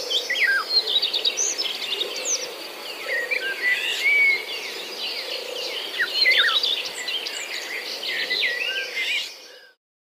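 A chorus of wild birds chirping and whistling, many short notes sliding up and down, over a steady background hiss. It fades out about nine and a half seconds in.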